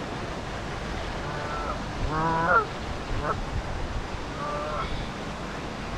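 Canada geese honking, about four calls, the loudest and longest about two seconds in, over a steady background rush.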